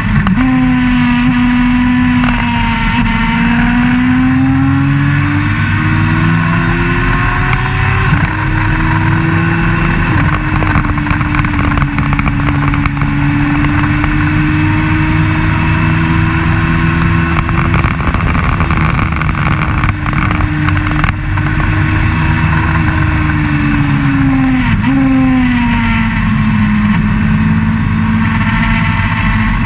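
Race car engine running at high revs, heard onboard at speed with a constant rush of wind noise. The engine pitch climbs slowly, holds nearly steady for long stretches with a brief step about ten seconds in, then drops near the end as the car slows and settles at a lower pitch.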